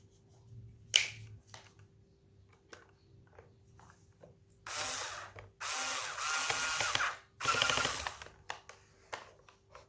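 Clicks and knocks of plastic parts being handled while a Dyson V6 cordless vacuum is reassembled, with one sharp click about a second in. Past the middle, three short noisy bursts of about a second each.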